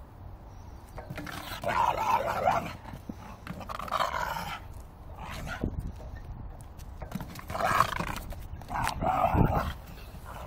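Staffordshire bull terrier growling in several loud bursts as she attacks a tyre swing, with a couple of dull thumps.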